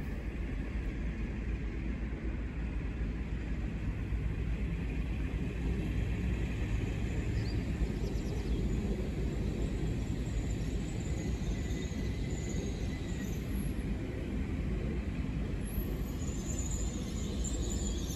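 Hitachi Azuma high-speed train running slowly into the platform, a steady low rumble that grows a little as it draws near.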